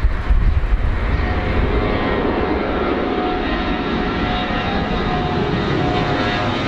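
Jet engines of a four-engined Airbus A340 at take-off thrust as it climbs out low overhead: a steady loud rush of engine noise, with thin whining fan tones running through it.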